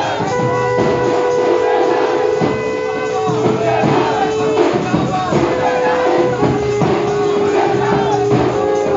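Loud festive music: a melody of long held notes that step between pitches every second or two, over drum strokes, with a crowd's voices and shouts mixed in.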